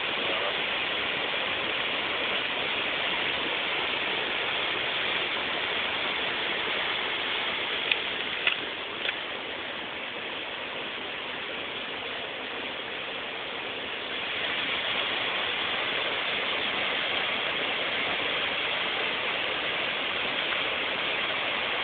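High Force waterfall on the River Tees rushing, a steady noise of falling water that drops a little in level for a few seconds in the middle. Three sharp clicks come about eight to nine seconds in.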